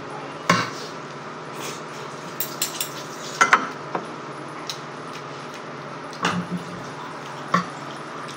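Metal spoon and fork clinking and scraping against a plate and a ceramic bowl during a meal, in scattered irregular taps, over a steady low background hum.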